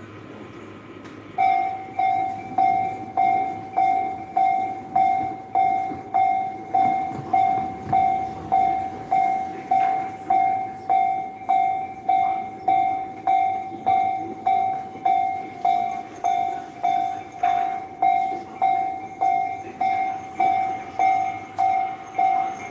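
Japanese railway level-crossing warning bell starting about a second and a half in, then sounding an even electronic ding about twice a second.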